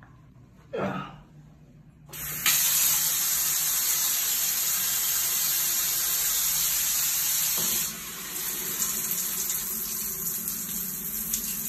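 Water running from a wall-mounted shower mixer tap, turned on about two seconds in and gushing steadily; about eight seconds in the flow changes to a softer, lower splashing. A brief squeak comes about a second in.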